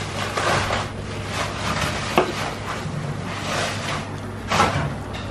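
Kitchen knife cutting through raw lamb ribs on a plastic cutting board: slicing and scraping, with a sharp tap about two seconds in.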